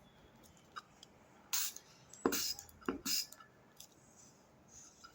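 Three short hissing spritzes from a handheld spray bottle, about a second apart.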